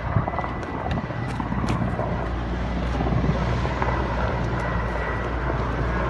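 Steady low engine drone with a deep rumble, with faint scattered clicks over it.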